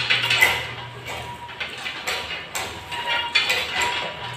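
Cable machine clinking and clanking over repeated chest-press reps: the chain links and snap hooks holding the handles rattle and the weight stack knocks, a sharp metallic clink every second or so.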